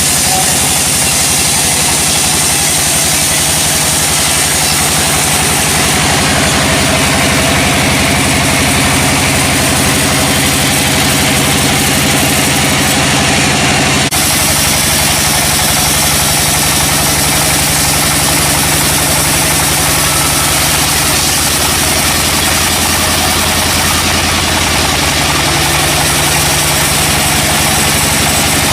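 A motor engine running steadily at idle. There is a brief click about halfway through, after which the engine's pitch shifts slightly.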